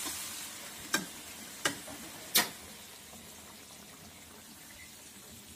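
Food cooking in a wok: a steady sizzling hiss that slowly fades, with three sharp clicks between about one and two and a half seconds in.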